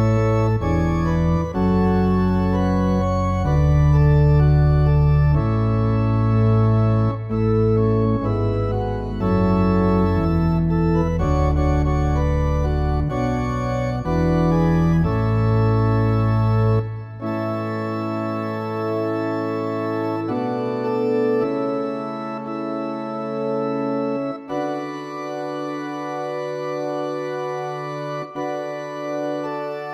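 Organ accompaniment to a responsorial psalm, with no voice. First the refrain melody is played over chords and a moving bass line. About halfway through, the bass drops out and the organ settles into long held chords for the verse.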